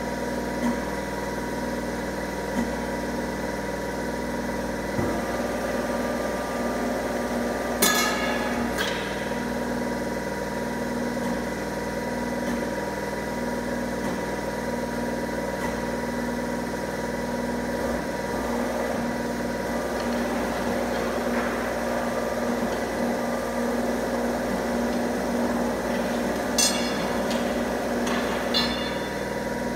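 Steel bar bending machine running steadily with a motor hum as a long steel bar is bent around its round die. Sharp metallic clanks ring out once about eight seconds in and twice near the end.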